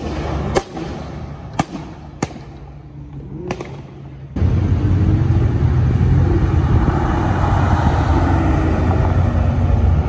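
Sports car exhaust popping and crackling as the car pulls away: a few sharp cracks over a fading engine note in the first four seconds. About four seconds in, a loud, steady car engine rumble suddenly takes over, with a wavering drone, as another car approaches.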